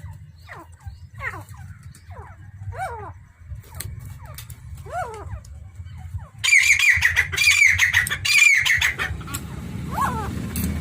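Quail calling: a run of short, falling chirps, then about six seconds in a louder burst of rapid, high repeated notes lasting two to three seconds, with one more falling chirp near the end. A low hum runs underneath.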